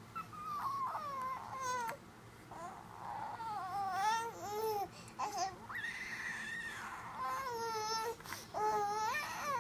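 Infant making weird high-pitched vocal noises: a series of drawn-out squeals and babbling calls whose pitch wavers up and down, with short pauses between them.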